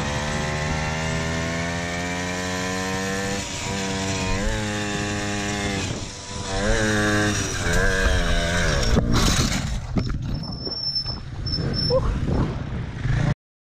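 Small motorcycle engine revving up, rising in pitch, with quick dips and rises about four and six and a half seconds in. From about eight seconds the engine note breaks up into rough noise and clatter, with a sharp knock about nine seconds in, as a wheel comes loose during a wheelie. The sound cuts off suddenly near the end.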